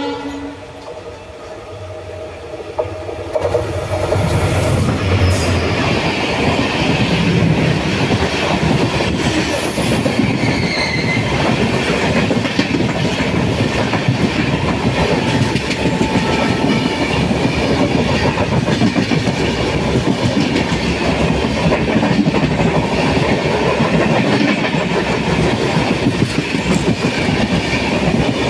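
The tail of a diesel locomotive's horn at the very start, then an oncoming EMD WDG4 diesel locomotive passes close by on the adjacent track with a brief low engine rumble about 3 to 5 seconds in. After it, its coaches rush past at speed, wheels clattering over the rail joints, heard from the open door of another moving train.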